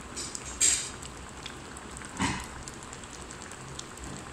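Pot of thick red lentil dal boiling, a steady bubbling with many small pops. Two louder short hissing puffs come about a second and two seconds in.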